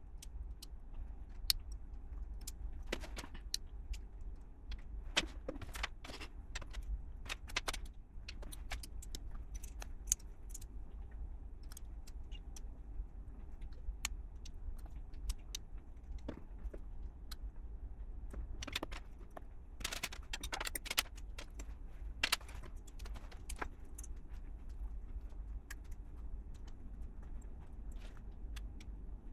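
Plastic LEGO pieces clicking and rattling as they are handled and pressed together: irregular sharp clicks with a quick cluster about two-thirds of the way through, over a steady low hum.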